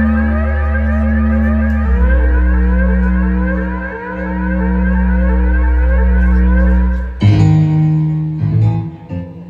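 Live progressive rock band music: synthesizer keyboards hold low sustained notes under a repeating, siren-like rising sweep. About seven seconds in the band breaks into short, sharp accented chords.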